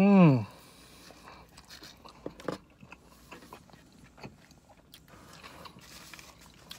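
A man chewing a bite of BBQ chicken and bacon pizza, opening with a loud, falling hummed "mmm" of enjoyment, then soft chewing and small wet mouth clicks.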